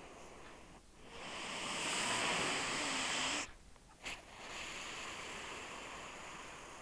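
Domestic cat snoring: a long hissing breath of about two and a half seconds that cuts off sharply, a brief click, then a softer breath that slowly fades.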